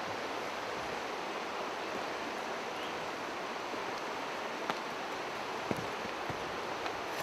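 Steady rushing of a river below the hillside, with a few footsteps knocking and scuffing on the rocky trail in the second half.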